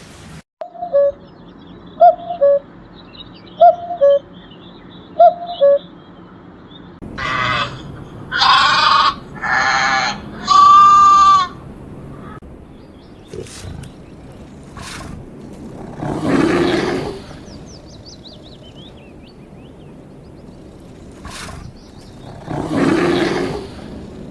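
A series of animal calls. First come four short, evenly spaced calls. Then four loud, rich cries follow one after another, and later two rough roars come several seconds apart.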